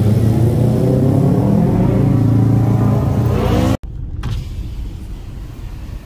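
Car engine running with a loud, low drone that cuts off abruptly a little under four seconds in. A quieter, steady rushing noise follows.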